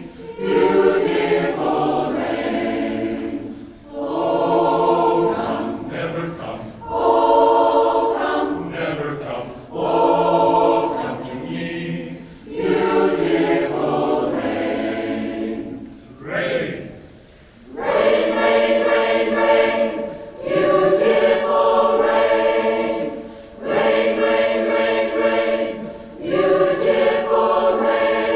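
Community choir singing in phrases of a few seconds, with short breaths and pauses between them.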